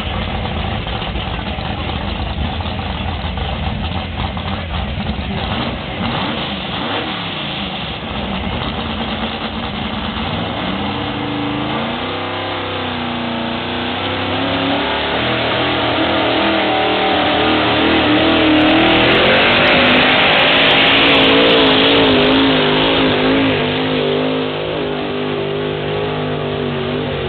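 Pickup pulling truck's engine under heavy load during a truck pull: a low rumble at first, then from about halfway in a wavering, rising engine note as the truck drags down the track, loudest near the three-quarter mark before easing off.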